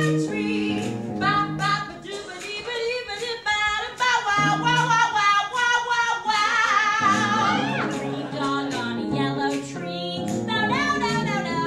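A woman singing a bouncy show tune over instrumental backing, from a stage musical.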